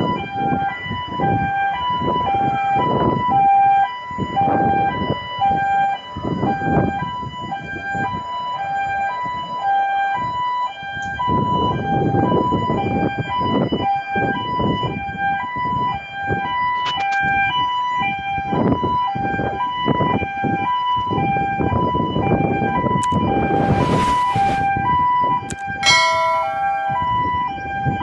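Gantry crane's two-tone warning alarm sounding on and on, a high and a low tone alternating a bit more than once a second: the signal that the crane is in operation. Irregular rumbling noise runs underneath, and there is a short hiss about 23 seconds in.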